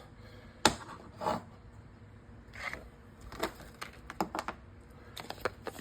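Tools and packaging being handled on a work surface: a few irregular clicks and knocks, coming closer together near the end.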